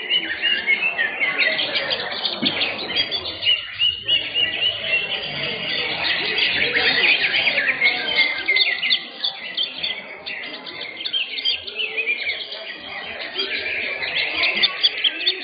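Many caged greater green leafbirds (cucak hijau) singing at once in a contest round: a dense, overlapping chorus of rapid chirps and whistles that eases a little past the middle.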